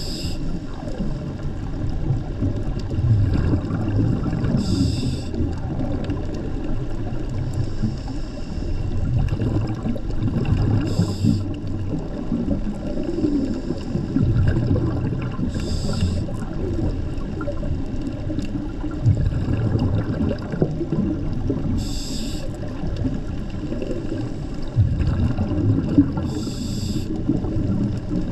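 Underwater scuba breathing: a short hiss from the diver's regulator about every five to six seconds, over a steady low rumble of water against the camera housing.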